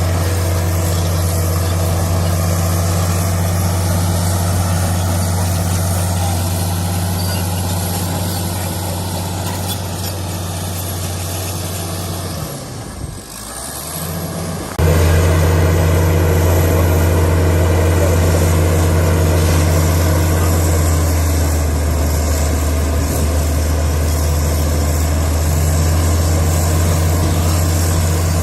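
Komatsu D65PX bulldozer's diesel engine running steadily with a deep, even hum. The sound drops away briefly about twelve seconds in and comes back louder about three seconds later.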